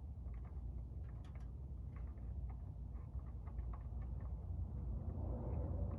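Faint, irregular clicks and ticks of a wrench and hands working the oil drain plug loose under the car, over a low steady rumble.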